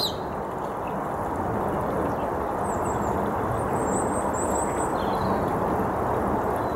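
Small propeller plane flying overhead, a steady engine and propeller drone, while birds chirp briefly a few times in the second half.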